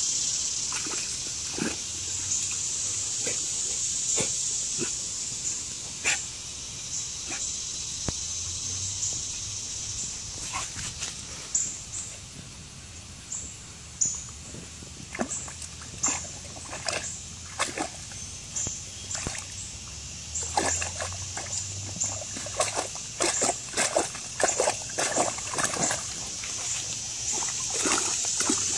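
Great Pyrenees dog eating wet mud: short, irregular wet mouth sounds that come more often in the second half, over a steady high hiss.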